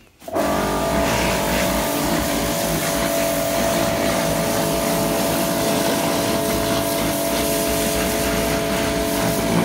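Pressure washer switching on right at the start and running steadily: a motor hum with a steady whine, under the hiss of the water jet spraying onto a quad's wheels and frame.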